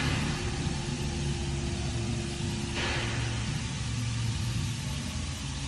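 Pickup truck engine idling steadily, heard from inside the cab as a low, even rumble, with a short hiss about three seconds in.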